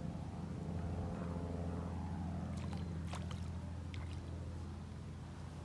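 A low, steady engine drone that grows louder about a second in and eases off near the end, with a few faint clicks around the middle.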